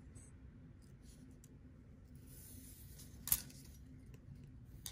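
Small metal fishing tackle and a hand tool being handled on a tabletop: light scratching and a brief hiss, then a sharp click about three seconds in and a smaller click near the end, over a low steady hum.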